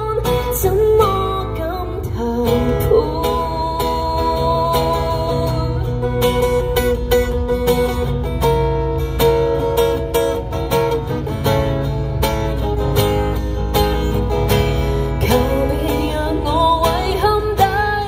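Live acoustic guitar strummed under a woman singing a pop song, with long held sung notes over the chords.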